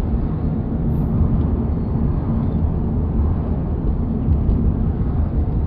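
Steady low rumble of road and wind noise inside a moving car.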